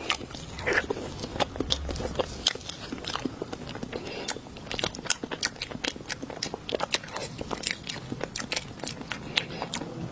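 Crunchy chewing and biting, close to the microphone: a continuous run of sharp, irregular crunches.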